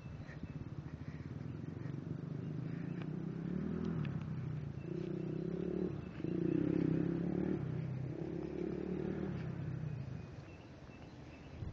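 A motor vehicle engine passing by: its hum swells to a peak a little past halfway and fades near the end, the pitch shifting up and down in steps.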